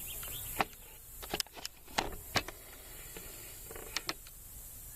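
About eight irregular clicks and light knocks over a steady hiss.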